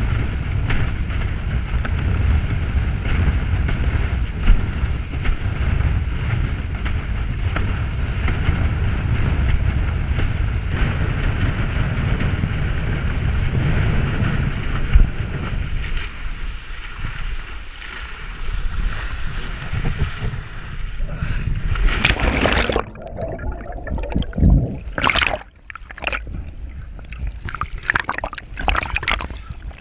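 Windsurfer planing at speed: wind buffeting the boom-mounted camera's microphone over rushing water under the board, a steady rumble. About 22 seconds in the sound turns muffled, with separate splashes and gurgles as the rig goes down and the camera is dunked in the water.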